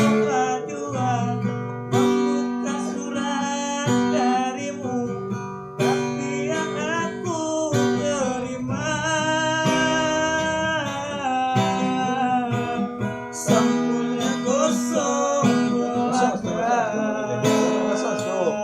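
Acoustic guitar strummed by a street busker, with a singing voice carrying the melody of a slow love ballad over it.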